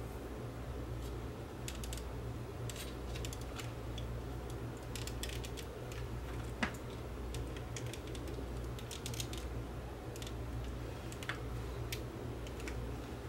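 Scattered light clicks and taps of fingers and tweezers handling a small plastic projector assembly inside an opened clock, with one sharper click about six and a half seconds in, over a steady low hum.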